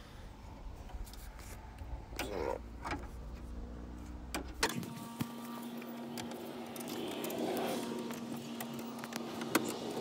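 Light metallic clicks and rattles of a truck door's latch pull rod and its retaining clip being handled inside the open door shell. A steady low hum comes in about halfway through.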